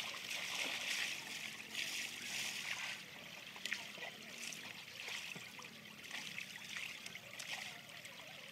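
Shallow river running over stones, with water splashing in the first three seconds as a person wades with a pail, then a steadier trickle with a few light knocks.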